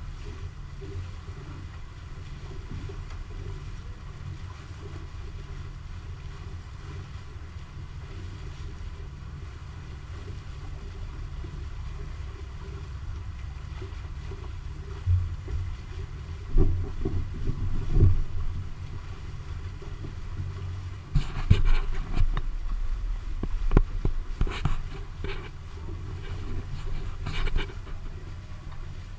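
Catamaran underway: a steady low rumble with wind and water noise on the camera microphone. About halfway through and again in the last third come irregular knocks and louder thumps.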